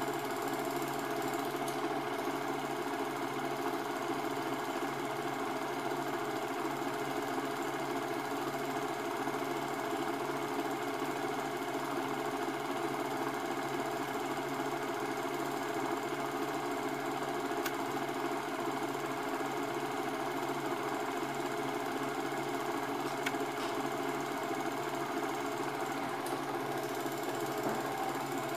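Cine projector running steadily, its mechanism making a continuous rapid clatter and whirr as the old home-movie film is played.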